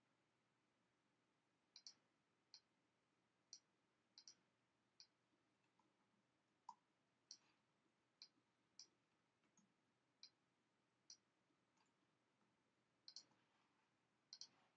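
Faint computer mouse and keyboard clicks, scattered at irregular intervals with some in quick pairs, as anchor points are placed with the pen tool and shortcuts are pressed while tracing a drawing in Adobe Illustrator.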